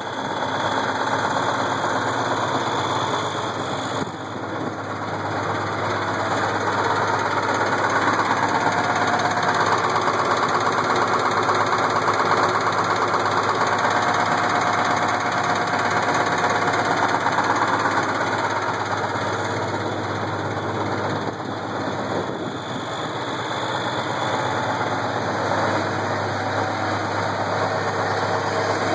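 Case IH 1680 combine's 8.3 L Cummins diesel engine running with a knock, getting louder for a stretch in the middle. The knock comes from a cracked cam gear with missing teeth.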